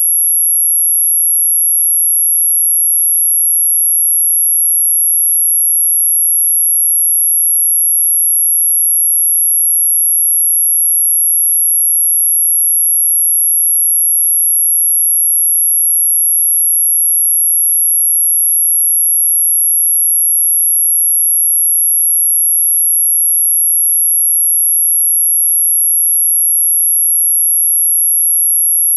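A single steady high-pitched electronic tone, held at one pitch without a break. It is the sine tone of an anti-mosquito repeller sound, played to drive off mosquitoes and other insects.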